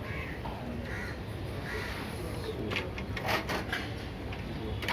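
Crows cawing a few times, then a quick run of sharp clicks and crinkles from a parcel's packaging being handled and opened, about three seconds in.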